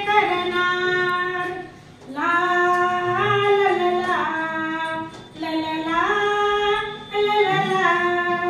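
A woman singing a Marathi song unaccompanied, holding long steady notes in phrases of a few seconds with short breaks between.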